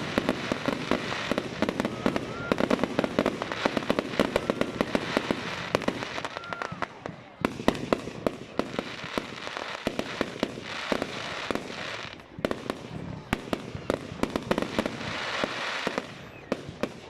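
Fireworks going off in rapid succession: a dense stream of sharp cracks and bangs, easing briefly twice before picking up again.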